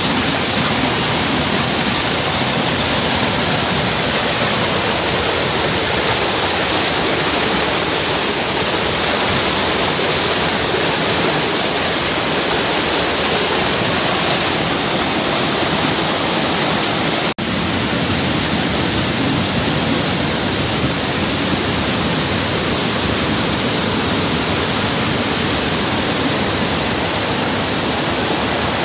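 A waterfall rushing: a loud, steady wash of falling water that drops out for an instant once, about two-thirds of the way through.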